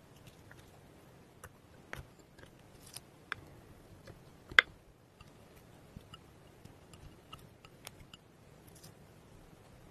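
Clear slime being poured from glass bowls and worked with a plastic spoon in a glass dish, giving soft scattered clicks and small sticky pops. One sharp click stands out a little before halfway through.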